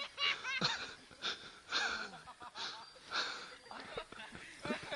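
Laughter and breathless gasps in short, irregular bursts.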